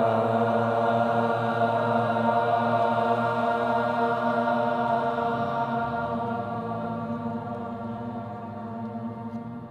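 The mantra 'Ram' chanted as one long, drawn-out tone on a single low pitch, slowly fading away.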